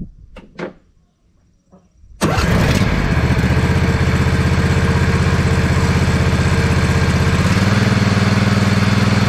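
Briggs & Stratton V-twin replacement engine on a John Deere Z425 zero-turn mower starting up about two seconds in, catching at once and then running steadily with its muffler refitted. Its speed picks up a little about seven and a half seconds in.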